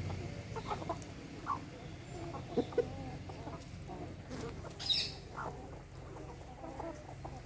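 A flock of hens and roosters clucking as they feed: short, low clucks scattered throughout, with one sharper, higher call about five seconds in.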